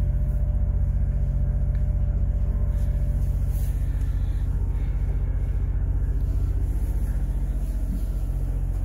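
Onboard marine generator of a Silverton 40 running steadily under load, carrying both of the boat's AC lines: a constant low hum with a fast, even engine pulse, heard from inside the cabin.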